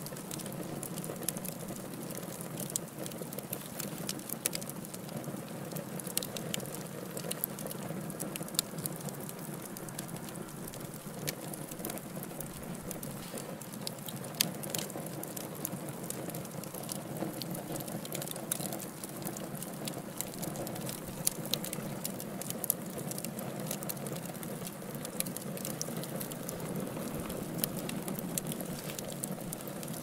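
Fireplace fire crackling and popping: many short, sharp pops at irregular intervals over a steady low rushing noise.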